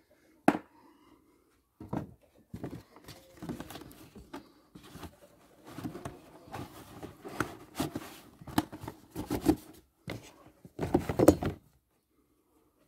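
A cardboard air-filter box and a paper panel air filter being handled: irregular rustling, scraping and tapping of cardboard. There is a sharp knock about half a second in and a louder burst of handling near the end.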